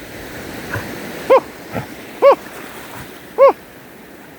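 A dog giving three short, high-pitched yelps about a second apart, each rising and falling in pitch, over the steady wash of surf.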